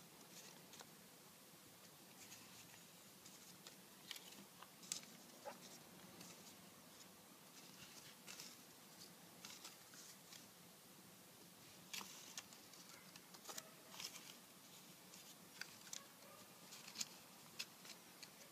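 Faint rustling and crinkling of pleated origami paper being handled and fitted together, with scattered soft ticks and crackles that come more often in the second half.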